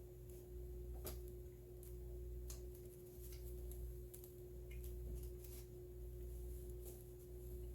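Faint, scattered mouth clicks and smacks from chewing a peanut butter and jelly bagel, over a steady low hum.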